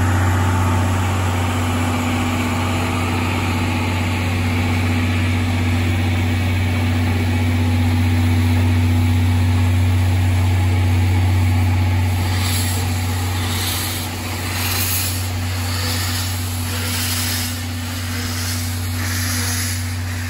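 C11 steam tank locomotive moving off slowly: a steady low hum at first, then from about twelve seconds in slow, even exhaust chuffs with steam hissing from the open cylinder drain cocks, a little more than one a second.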